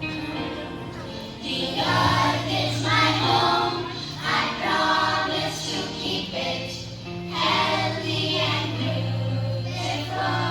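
Group of children singing in chorus over a steady instrumental accompaniment, in several sung phrases.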